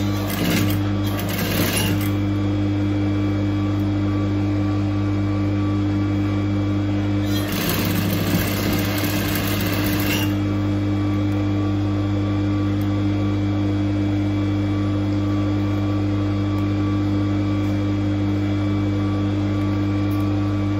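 Electric sewing machine running steadily, stitching cloth, with a constant hum. There are two brief stretches of rustling, one near the start and one about eight seconds in.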